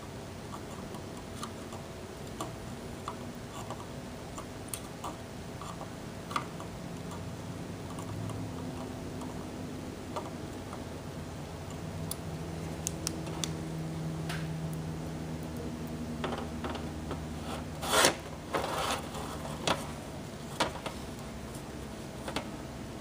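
Scattered light clicks and taps over a low steady hum, with a louder clatter about eighteen seconds in.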